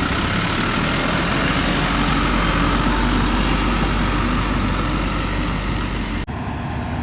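Heavy diesel earthmoving machinery running steadily close by. About six seconds in the sound breaks off for an instant and resumes, a little duller.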